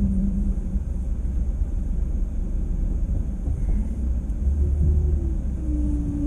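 Car driving, heard from inside the cabin: a steady low rumble of engine and road noise. A steady hum comes in near the end.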